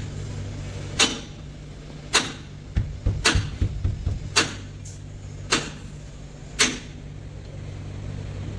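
Sharp knocks repeating about once a second, with a flurry of lighter taps near the middle, as a truck cab's side-window glass is knocked into its rubber seal. A low steady hum stops about a second in.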